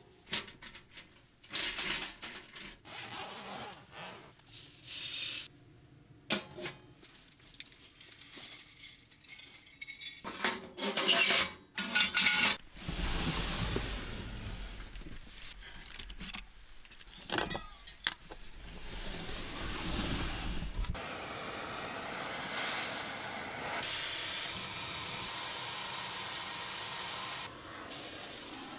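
Clinks and knocks of metal parts as a small wood stove and its chimney pipe are handled, then rattling as utensils in a kitchen drawer are rummaged through. About two-thirds in, a steady hiss starts: a handheld butane torch burning as it lights the stove.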